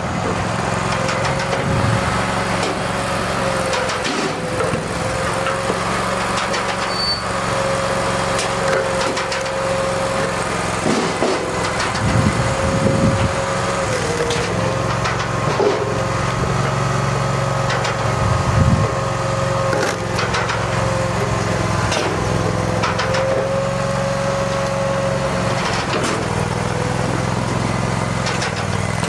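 Engine-driven hydraulic vertical log splitter running steadily, its hum dipping briefly in pitch a few times, with scattered knocks and cracks as logs are split and handled.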